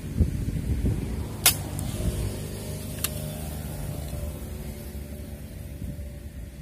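Wind rumbling on the microphone while a motor vehicle's engine passes, its pitch slowly falling over a few seconds. Two sharp clicks cut through, the louder about a second and a half in and another about three seconds in.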